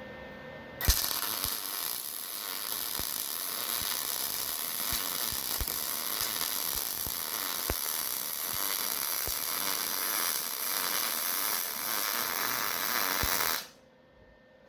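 Wire-feed welder arc: a steady crackling hiss that strikes suddenly about a second in with a sharp crack, runs for about thirteen seconds with scattered pops, then cuts off.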